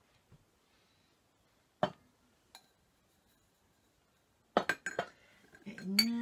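China and glassware clinking as pieces are set down and moved on a crowded table: one sharp clink about two seconds in, then a quick run of clinks near the end.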